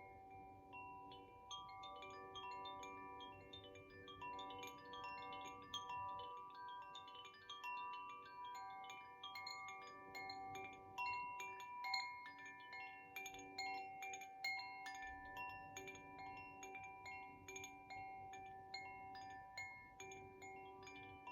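Koshi chime in the Ignis (fire) tuning being played: its tuned metal rods are struck lightly and irregularly several times a second, and the ringing tones overlap and sustain into one another in a shimmering wash of overtones.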